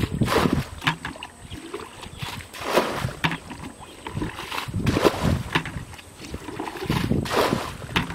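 A fish thrashing in shallow water, splashing in irregular bursts.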